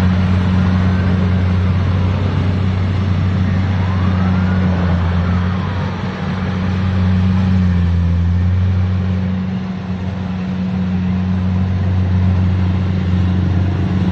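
Engine of a rice-harvesting machine running steadily with a low drone, easing off slightly twice.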